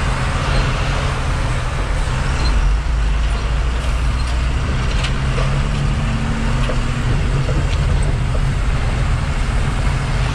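Tata truck's diesel engine running steadily under way, heard from inside the cab, over the rumble of tyres on a rough gravel road.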